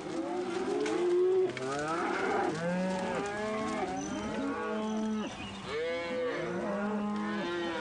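A herd of African buffalo lowing: many overlapping moaning calls, some rising and falling in pitch, others held at one low pitch for about a second.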